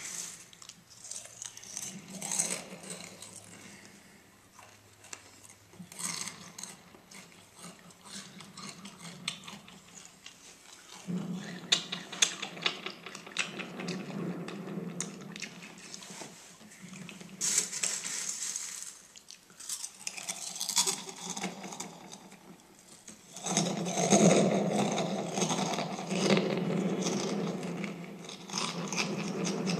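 Frosted Flakes cereal being chewed close to the microphone, with crisp crunching in irregular spells that grow louder about eleven seconds in and again in the last six seconds.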